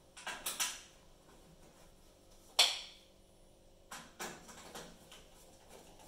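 Sheet-metal rear panel of a Beko DVC61S cooker being fitted back in place by hand: a few scrapes and rattles, one sharp metallic clank about two and a half seconds in, then more light knocking and rattling.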